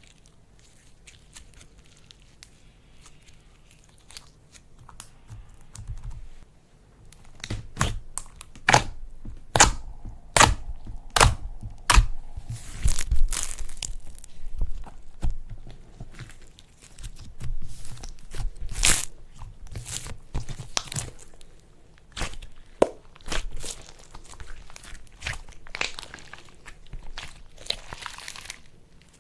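Slime being squeezed and stretched by hand, giving a run of sharp pops, crackles and crunches. It starts sparse and thickens after several seconds into a dense crackling, with a short lull before the last few seconds.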